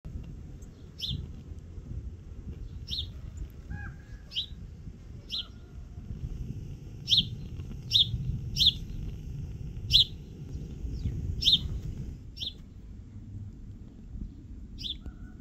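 House sparrow chirping: about a dozen short single cheeps at irregular intervals, over a low rumble of wind on the microphone.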